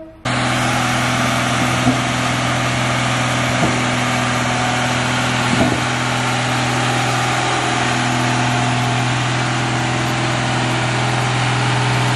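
Single-drum road roller's diesel engine running steadily as the roller drives, a constant low hum with a few faint knocks.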